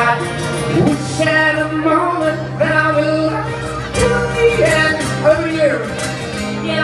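A man singing a live song over his own acoustic guitar, with a sung melody over steady held chords.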